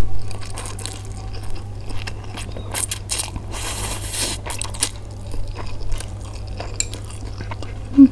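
Close-up mouth sounds of eating Indomie goreng instant fried noodles: wet chewing and lip smacks with many small clicks, and a longer slurp about four seconds in.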